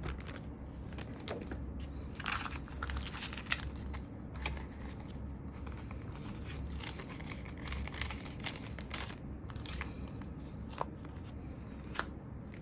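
Crinkling and rustling of album packaging and paper inserts being handled, with scattered small clicks and snaps, busiest a couple of seconds in.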